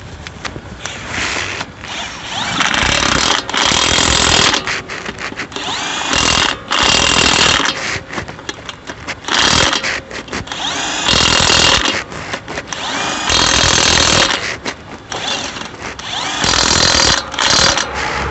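Impact wrench running on a wheel's lug nuts in about eight short bursts of a second or so each, with short pauses between.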